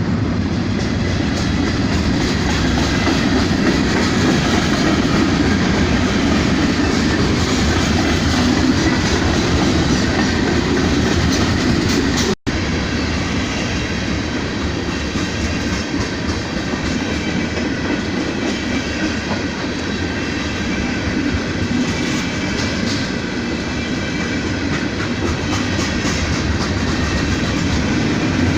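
Freight train cars rolling past, with steady loud wheel and rail noise and clickety-clack over the rail joints. The sound drops out sharply for an instant about twelve seconds in.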